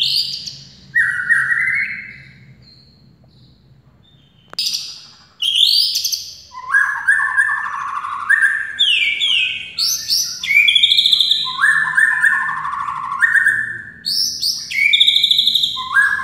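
Caged white-rumped shama (murai batu) singing loud, varied whistled phrases with quick rising and falling sweeps. A few phrases open the song, then it pauses for about two seconds. After a single sharp click it resumes about five seconds in with an almost unbroken run of phrases to the end.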